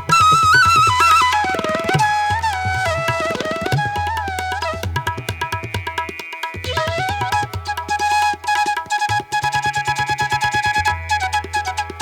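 Instrumental background music: a melodic lead line that slides between notes over a steady, fast hand-drum beat and a low sustained bass.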